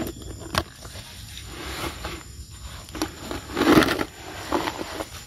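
Hands and bare feet digging and working wet sand: a run of irregular soft scraping, squelching sounds, loudest a little before four seconds in, with two sharp knocks near the start.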